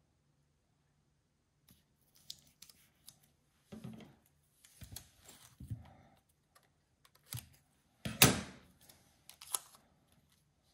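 Magic tape being pulled from a desk dispenser, torn off and pressed onto a thin aluminium sheet: scattered light clicks and rustles of tape and sheet, the loudest a half-second noise about two-thirds of the way through.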